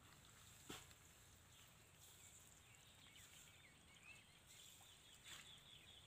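Near silence: faint rural outdoor ambience with small, distant bird chirps and two soft clicks.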